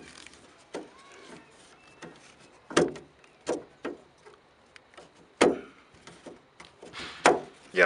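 About five sharp clicks and knocks at irregular intervals from hands working a plastic fuel filter housing and its fuel-line fittings.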